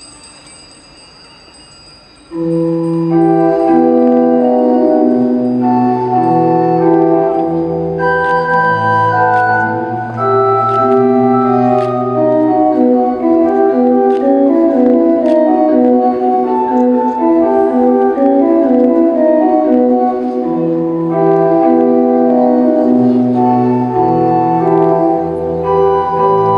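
Organ music from the light show's soundtrack. Sustained chords over a moving bass line come in suddenly and loud about two seconds in, after the fading tail of a ringing tone.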